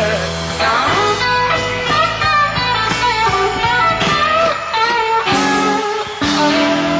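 Rock band playing live: an electric lead guitar plays bent notes over a steady bass line and drums.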